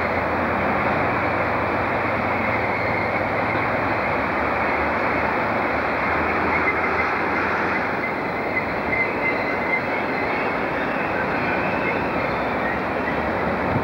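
Trains moving through a station: a steady rumble of railway rolling stock, with a locomotive-hauled train drawing slowly in beside the platform. A faint high wheel squeal comes and goes.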